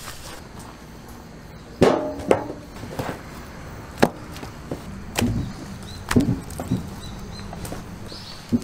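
Raw bone-in steaks being dropped and stacked into stainless steel hotel pans: about ten irregular heavy slaps and knocks, the loudest about two seconds in with a short metallic ring from the pan.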